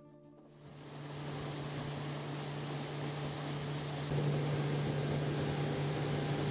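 A motor running steadily: a constant low hum under a rushing noise, stepping up in loudness about four seconds in and cutting off suddenly at the end.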